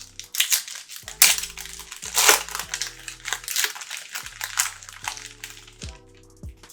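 Foil trading-card pack wrapper being torn open and crinkled by hand, a run of rough crackles that are loudest early on, over soft background music.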